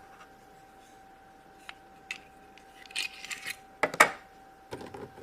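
Small plastic MagiClip doll and clip-on dress handled by hand: scattered light clicks and rubbing, with two sharper snaps about four seconds in as a dress is pulled off or clipped on. A faint steady hum runs underneath.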